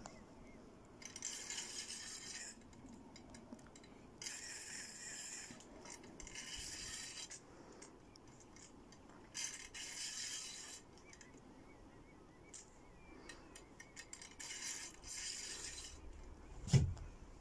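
Spinning fishing reel whirring in repeated rasping bursts of about a second each, as line is cranked in or pulled off against the drag by a heavy cod on a bent rod. A single knock comes near the end.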